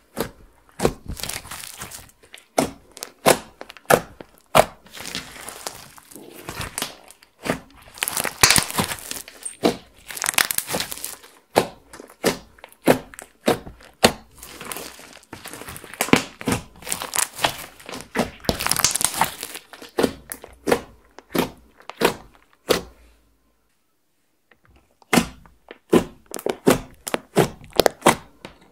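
Hands kneading, pressing and poking fingertips into clear slime mixed with eyeshadow and glitter: a quick run of wet clicks and pops as air pockets in the slime burst, with denser crackly stretches. There is a pause of about two seconds near the end.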